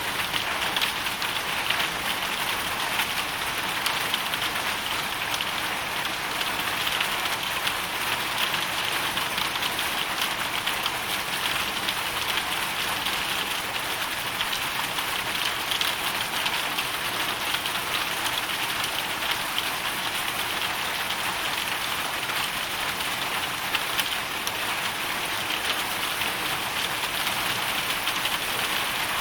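Hail shower with rain, falling steadily: a dense, even patter of countless small impacts that holds without pause.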